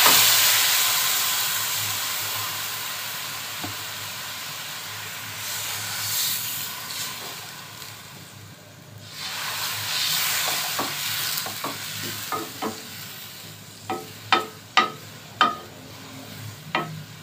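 Water poured into hot oil and fried onion-and-spice masala in a metal pot, sizzling loudly at first and fading over several seconds, then swelling again as the mixture is stirred with a wooden spoon. In the last few seconds, a series of sharp knocks of the wooden spoon against the pot.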